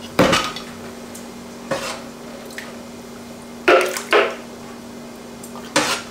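Metal ladle knocking and scraping against the roaster pan and the blender container while thick tomato sauce is ladled across: about five separate clanks, two of them close together in the middle, over a steady low hum.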